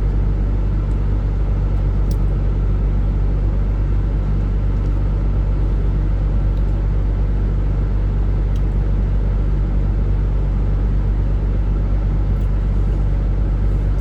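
Steady low rumble of a truck's engine running, heard from inside the cab, with no change in pitch or level.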